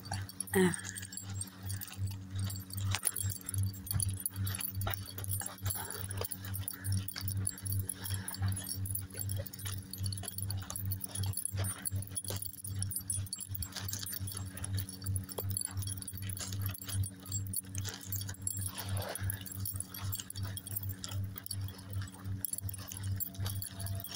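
Footsteps on sand and pebbles in a steady walking rhythm, over a low steady hum.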